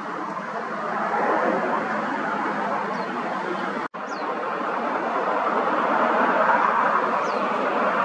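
Steady outdoor rushing noise with three short, high, falling bird chirps. The sound drops out for an instant about halfway through.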